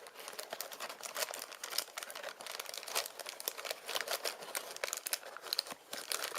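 Crinkling and rustling of a mystery-mini toy's packaging as it is handled and torn open, a steady run of irregular crackles.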